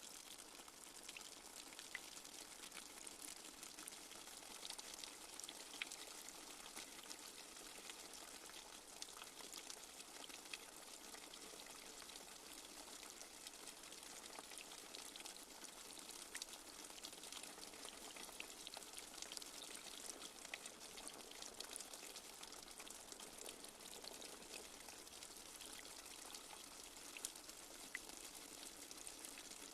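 Light rain falling steadily, a soft even hiss scattered with many small drop ticks.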